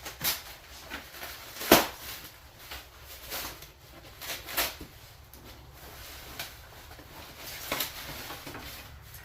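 Lathe parts and packaging being handled while unpacking: a series of short knocks, scrapes and rustles, the sharpest about two seconds in.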